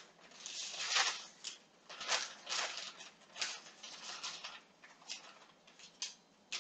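Brown paper wrapping rustling and crinkling in irregular bursts as a package of salmon is handled on a kitchen counter.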